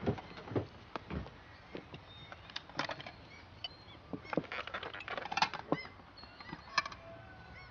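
Small birds chirping now and then, over a string of short knocks and clinks of glasses, pitcher and plates being handled on a table, busiest in the middle.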